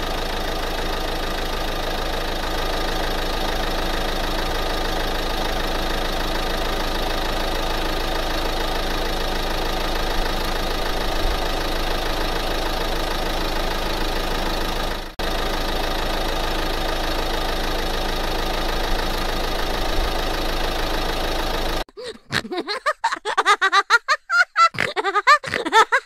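A steady engine idling without change, cutting out briefly about fifteen seconds in. About four seconds before the end it gives way to a child's laughter.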